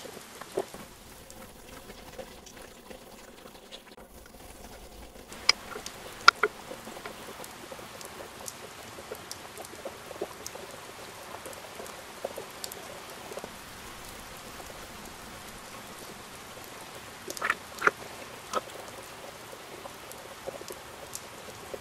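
Gloved hands working loose potting soil around newly planted succulents and a fern, a light gritty patter of soil with scattered sharp ticks, a few of them close together late on. Near the end a metal soil scoop pours soil into the planter.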